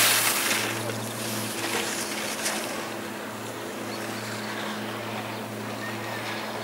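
Alpine racing skis carving a giant slalom turn on firm snow: a loud hissing scrape of the ski edges as the racer passes close, fading within about a second as the skier moves off down the slope. A faint steady low hum runs underneath.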